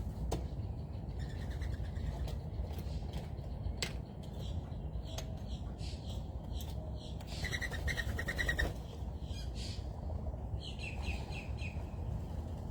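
Wild birds chirping, with a fast trill of rapidly repeated notes about two thirds of the way through and a short run of falling chirps near the end, over steady low background noise.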